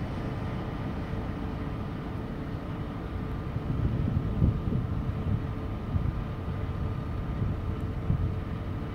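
Freight train of autorack cars rolling away into the distance, a steady low rumble of wheels on the rails.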